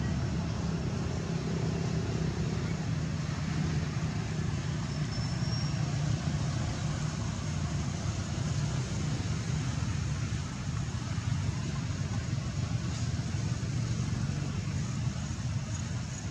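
A steady low engine hum, like a motor vehicle running or idling, over an even background hiss.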